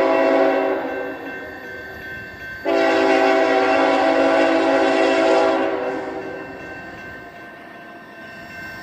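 Freight diesel locomotive's multi-chime air horn sounding a chord: a blast already under way that fades out, then a second long blast starting about a third of the way in and dying away after a few seconds.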